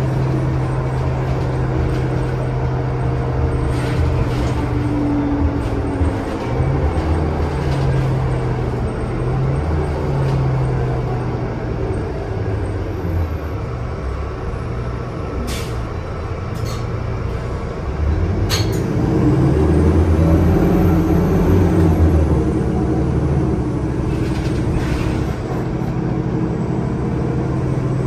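Onboard a NovaBus LFS CNG city bus: its Cummins ISL-G 8.9 L six-cylinder natural-gas engine runs with a steady hum. A few sharp clicks or rattles come in the middle. Later the engine grows louder and works harder for several seconds, its pitch shifting, before settling back to a steady hum.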